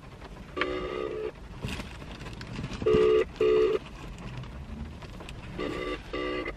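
Phone ringback tone playing from a smartphone's speaker while an outgoing call waits to be answered: one short tone, then twice a pair of quick rings about two and a half seconds apart.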